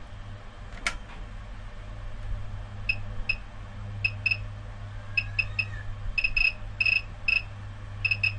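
Short high beeps from a Sunshine P-1505TD bench power supply, singly and in quick clusters from about three seconds in, as its endlessly turning voltage knob is wound down step by step. There is a single click about a second in and a steady low hum underneath.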